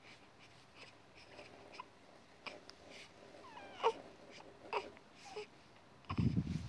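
A newborn baby's small squeaks, grunts and mouth clicks, with a short gliding squeal about four seconds in and a brief louder fussy cry near the end.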